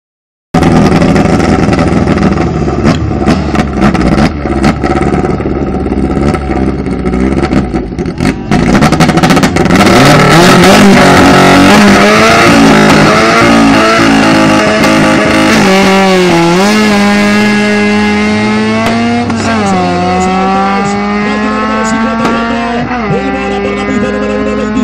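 Drag race between a VW Bora and a small hatchback: engines revving at the start line, then launching and accelerating hard away, the engine note rising and dropping back at three gear changes in the second half.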